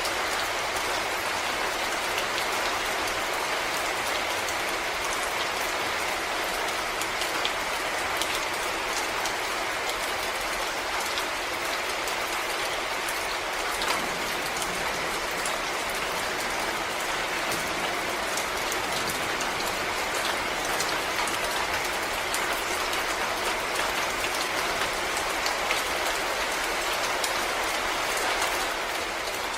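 Steady rain falling through forest, with many small drops ticking on leaves.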